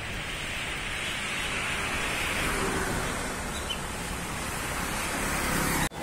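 Road traffic noise: a vehicle passing on the asphalt road, its tyre hiss swelling a second or two in and fading, over a steady hiss of traffic. It cuts off suddenly near the end.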